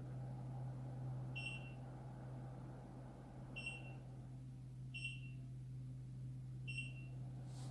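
Xiaomi Smartmi evaporative humidifier running with a steady low fan hum, and four short high beeps from its control electronics spread across a few seconds.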